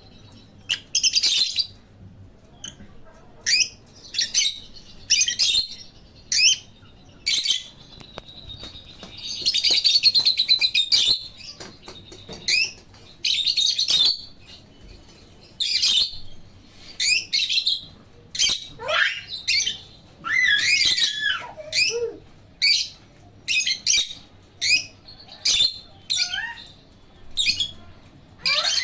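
Pet African lovebirds and a cockatiel chirping: a steady run of short, shrill chirps about once a second, with a longer chattering burst about ten seconds in and a few falling whistles about two-thirds of the way through.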